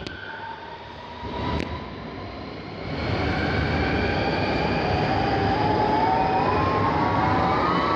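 Alstom Metropolis C751C metro train pulling away. The rumble grows louder about three seconds in, and from about five seconds its traction motors' whine rises steadily in pitch as the train picks up speed.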